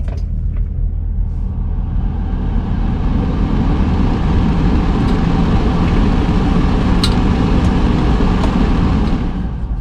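Steady low rumble of an idling diesel truck engine. A rushing noise swells up over several seconds and fades away again, with a single sharp click partway through.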